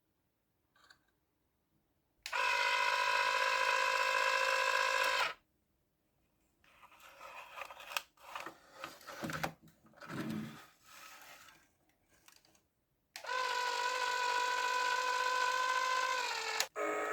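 Electric power tool motor running in two steady bursts of about three seconds each, with a steady pitched whine. The second burst slows as it winds down. Between the bursts there are scattered knocks and handling clatter.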